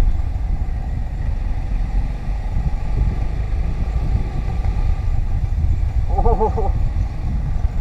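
Motorcycle running at road speed, heard from the rider's position as a steady low rumble of engine and rushing wind on the microphone.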